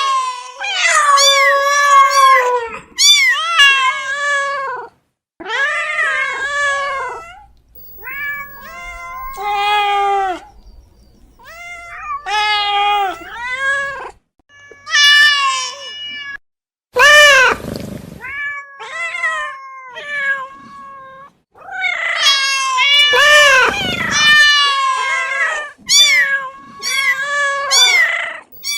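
Domestic cats meowing, one call after another: a string of short and drawn-out meows, a few of them long and wailing, with abrupt breaks between recordings.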